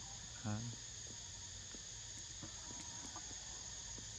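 Steady high-pitched insect chorus. A short voiced call, the loudest sound, comes about half a second in.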